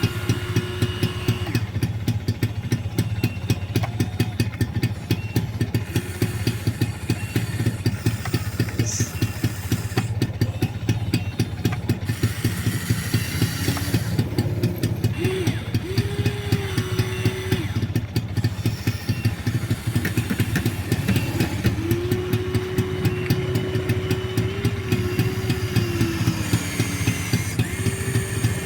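Electric motors and gears of a Huina 1593 RC excavator whining in spells as the arm works, over a steady, fast mechanical throbbing like a small engine idling.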